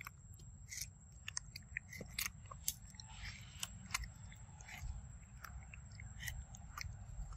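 A macaque biting and chewing soft yellow fruit close to the microphone: an irregular run of short, sharp wet clicks and smacks.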